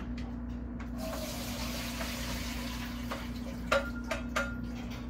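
Kitchen tap running into a stainless-steel sink as charred shallots and ginger are rinsed, shutting off after a couple of seconds. Then a few sharp, ringing clinks of cookware being handled.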